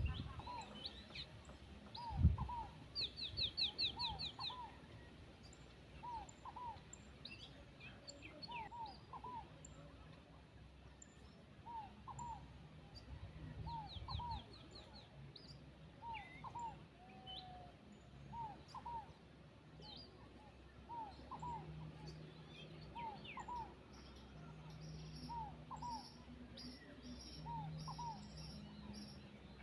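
A bird known locally as the tierrelita calling over and over: a short two-note call repeated about every second and a half, with other birds chirping and trilling around it. A couple of low thumps come early on and near the middle.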